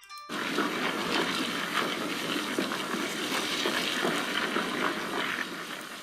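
Recorded earthquake sound: a dense, steady roar with rattling clatter running through it. It starts a moment in and dies down near the end.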